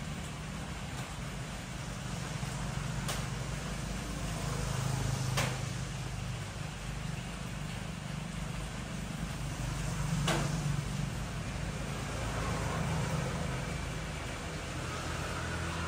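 Steady low hum with a few sharp clicks, about three, five and ten seconds in.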